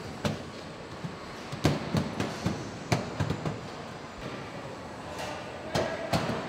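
Factory floor noise of a van assembly line: irregular metallic clanks and knocks over a steady background din.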